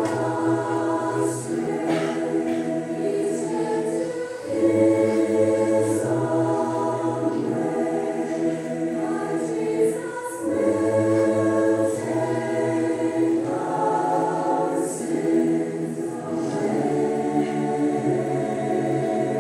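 Choir singing a slow song in long, held phrases, with a brief break about every six seconds.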